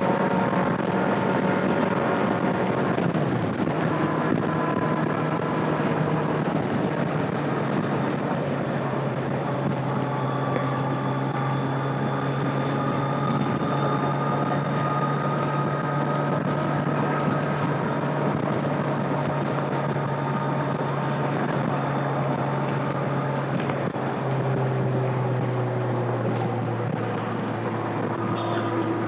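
A 2025 Kawasaki Z900's stock inline-four engine and exhaust running at a steady cruise, with wind noise on the microphone. The engine note dips slightly about three-quarters of the way through as the throttle eases.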